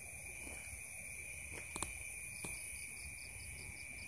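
Crickets and other night insects trilling steadily and high-pitched. A second insect pulses about five times a second from about halfway through, and there are a few faint clicks.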